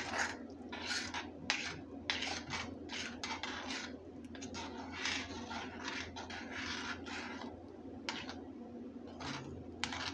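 Wooden spoon stirring and scraping through a full pan of ramen noodles and vegetables, in irregular strokes about every half second, with a few sharper knocks against the pan.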